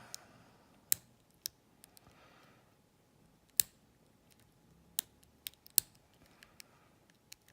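Lock pick probing the pins inside a small CISA padlock while searching for the binding pin, making scattered, irregular sharp metallic clicks and ticks. The loudest click comes about three and a half seconds in, with other strong ones about a second in, at five seconds and near six seconds.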